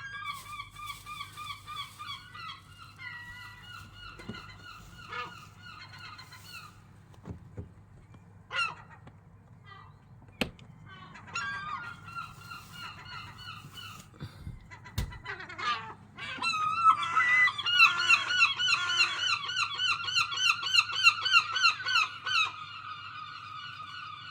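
Gulls calling loudly in long runs of fast repeated yelping notes, with a lull in the middle and the loudest, busiest stretch in the second half. A couple of sharp clicks come midway, over a faint steady low hum.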